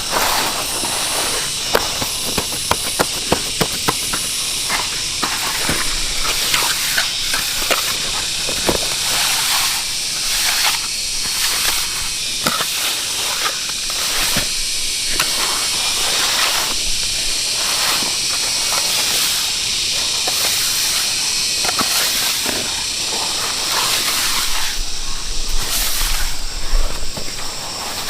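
A steady high hiss, like an insect chorus, under irregular scraping and clicking strokes of hand work with cement on the pond edge.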